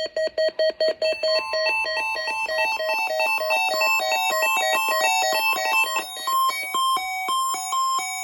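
Several weather radios alarming at once: overlapping electronic beeps in different pitches and rhythms, one low beep pulsing about five times a second. Under them a steady weather alert tone starts about a second in.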